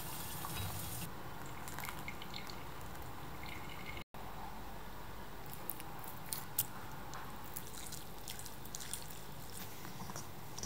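Faint drips and liquid sounds around orange segments in syrup in a metal bowl, with a few light clicks. The sound cuts out for a moment about four seconds in.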